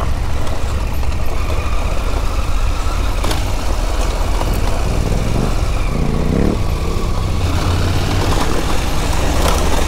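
KTM Adventure R motorcycle engine running at low speed on a gravel track, heard from on the bike with steady road and wind noise. The engine revs rise briefly twice around the middle.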